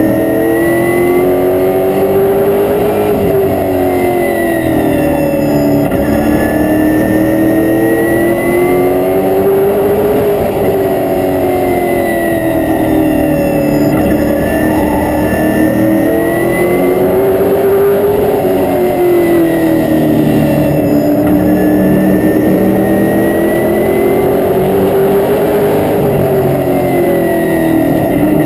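Oval-track race car engine heard from inside the cockpit, running hard lap after lap. Its pitch climbs along each straightaway and drops as the car lifts for the turns, rising and falling about every seven seconds.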